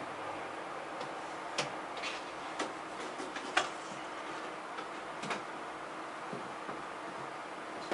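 Scattered sharp clicks at uneven intervals over a steady background hiss, the loudest about three and a half seconds in.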